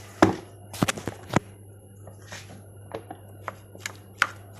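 Irregular sharp knocks and clicks of food preparation, a knife or utensils against a board or dish, over a steady low electrical hum.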